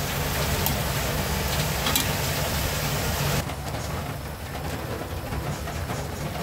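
Chicken pieces searing in hot oil with garlic in a frying pan: a loud sizzle with a couple of spatula clicks against the pan. A little over three seconds in, it changes abruptly to the quieter bubbling of chicken adobo simmering in its sauce. A steady low rumble runs underneath.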